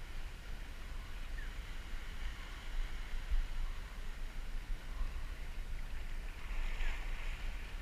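Wind rumbling and buffeting on the microphone over a faint steady hiss of sea ambience, with a brief louder hiss about seven seconds in.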